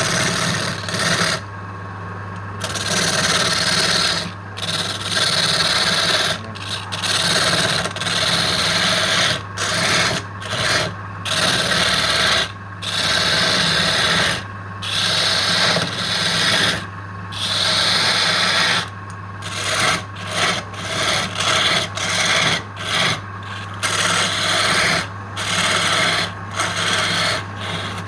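Wood lathe running with a steady motor hum while a tool rubs and rasps against the spinning wood in repeated passes. The rasping stops and restarts every second or two.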